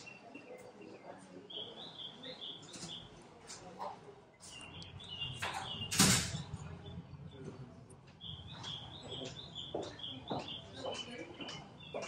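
Small birds chirping in repeated short runs of quick high notes, with a single sharp knock about six seconds in.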